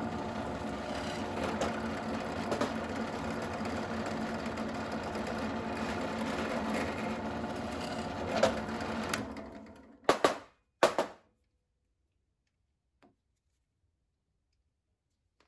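Benchtop drill press motor running steadily with its bit boring through a 3D-printed TPU part. About nine seconds in the motor winds down, followed by two sharp knocks close together.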